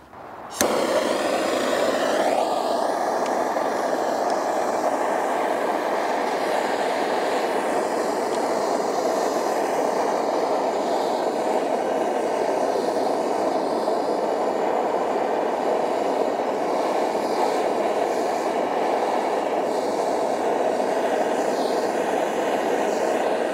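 Propane torch flame running with a steady rushing roar, starting suddenly about half a second in, as it heats a soldered copper tee joint to melt the solder out.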